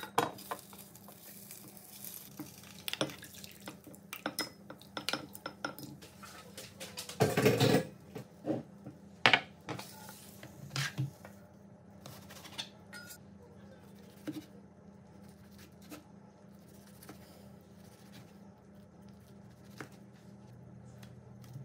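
Kitchen utensil sounds: a spatula clicking and scraping against a small square nonstick omelette pan while a rolled egg omelette is turned, with a louder clatter about seven seconds in. Fewer, fainter knocks follow in the second half, as a cutting board and knife are handled, over a steady low hum.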